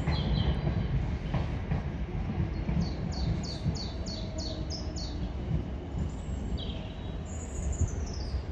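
Electric passenger train rumbling past at a distance, a steady low rumble. A songbird sings over it: a quick run of about seven falling whistled notes a few seconds in, and a few more falling calls near the end.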